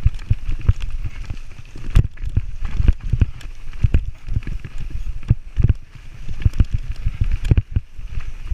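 Mountain bike clattering down a rough trail: irregular knocks and thuds from the bike jolting over roots and rocks, over a low rumble of wind on the helmet camera.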